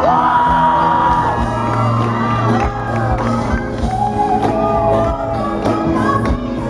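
Live band music with a woman singing lead over bass and drums, heard from within the audience in a large hall, with shouts and whoops from the crowd.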